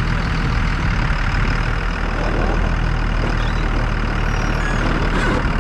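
Pickup plow truck's engine running steadily as the truck drives, with a constant hiss of wind and road noise over the hood.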